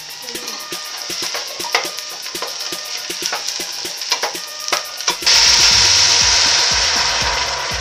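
Wooden spoon stirring diced vegetables in a hot stainless steel pot, with scraping and sizzling clicks. About five seconds in, water is poured in from a jug and hits the hot pot with a loud hiss that slowly fades.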